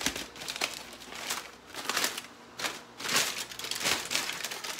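Aluminium foil crinkling and crackling in uneven bursts as it is pulled open from around a baked loaf of bread.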